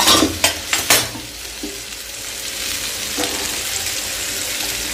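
Spice-coated padhin fish pieces shallow-frying in oil in a pan, a steady sizzle. A few sharp knocks of cookware in the first second.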